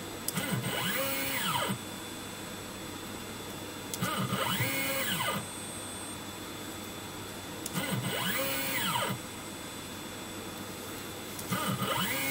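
Stepper motor driving the X axis of a JLW T1 CNC milling machine through repeated short 5 mm moves, with a whine that rises in pitch as the axis speeds up and falls as it slows to a stop. There are four moves, one about every four seconds, with a steady faint hum between them.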